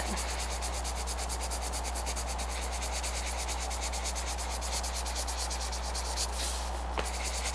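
Colored pencil scratching on paper in rapid, even shading strokes, several a second, as a sphere is filled in with scumbling.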